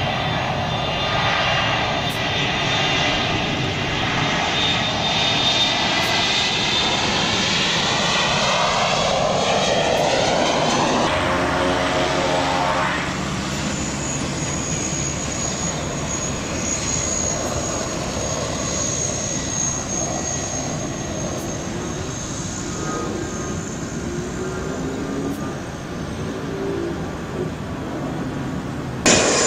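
A Boeing 737 jet passing with its engine sound sliding down in pitch. About 11 seconds in it gives way to a Cessna 208 Caravan's Pratt & Whitney PT6A turboprop running as the plane taxis, with a steady high-pitched turbine whistle over the engine noise.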